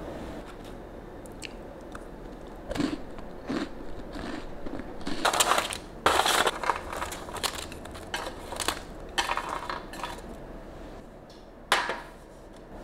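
Crisp-baked small square pastries being handled on a metal baking tray and dropped into a paper-lined wicker basket: a run of crunching and paper-rustling sounds, loudest about halfway through, with one last sharp rustle near the end.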